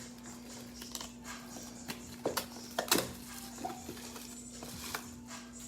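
A Prizm football blaster box being handled and opened: scattered crackles and taps of cardboard and wrapper, loudest about three seconds in, over a low steady hum.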